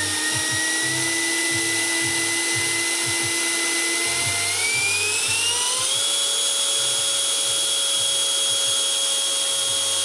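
Radio-controlled MiG-15 model jet's turbine running at low power with a steady high whine. About halfway through the throttle is opened a little and the whine climbs in pitch, then holds steady at the higher pitch.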